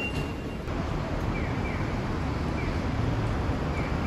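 Steady hum of busy road traffic below, with wind on the microphone. A few faint, short, high falling chirps come and go over it.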